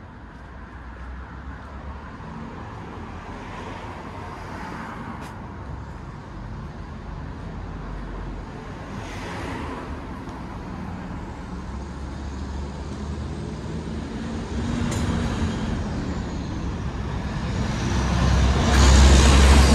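Road traffic on a city street: vehicles pass one after another with a steady low rumble underneath. The sound grows louder through the stretch and is loudest near the end as a vehicle passes close.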